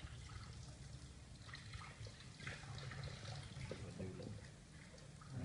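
Faint water trickling and dripping, with small scattered splashes over a steady low rumble.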